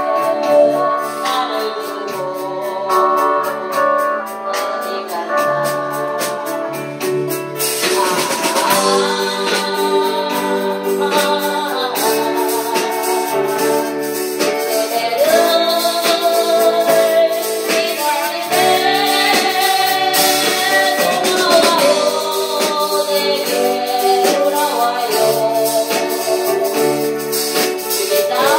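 A song with a steady percussion beat and sustained accompaniment; a voice starts singing about eight seconds in and carries on.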